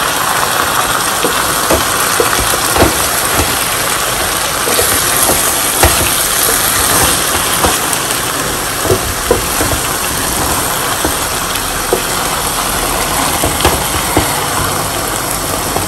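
Chicken, spinach and butternut squash sizzling steadily in a pan as they are stirred with a wooden spatula, with scattered short knocks of the spatula against the pan.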